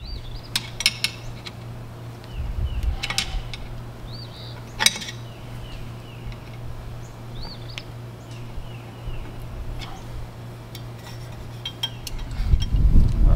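Sharp metallic clinks and scrapes of a flathead screwdriver prying at the tabbed lock washer on the propeller nut of a Mercury outboard. The clicks come at irregular intervals, the loudest about five seconds in, over a steady low hum.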